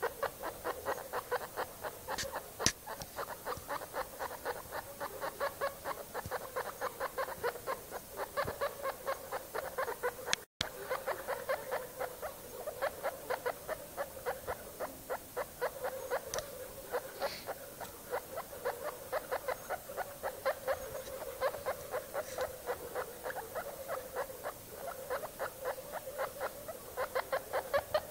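Guinea pigs calling: an unbroken run of short, rapid pulsed notes, about five a second, that cuts out for an instant about ten seconds in.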